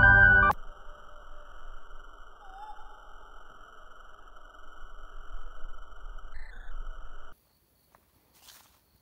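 Electronic intro sound effect: a loud rising synth sweep ends about half a second in, then a steady high electronic drone of layered tones with a low rumble underneath, cutting off suddenly about seven seconds in.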